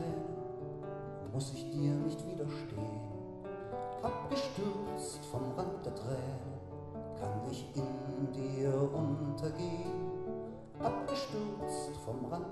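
Classical (nylon-string) guitar strummed in slow chords, a fresh chord about every two to three seconds, with a man singing softly over it.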